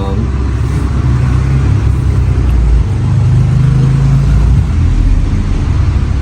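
Low, uneven rumble of a road vehicle's engine running close by, its pitch shifting up and down.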